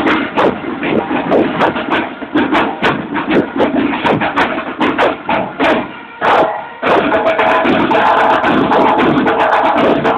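Marching band playing: drums beating a rapid rhythm of sharp strikes. About six seconds in the playing briefly drops off, then the full band comes back louder with sustained melodic notes over the drums.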